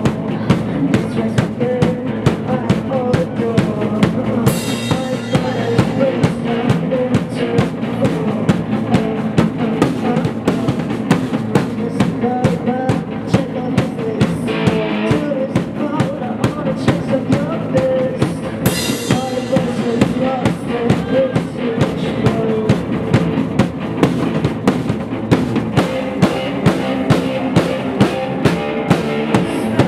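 Live band music: electric guitar over a steady drum beat of about two strokes a second, without vocals.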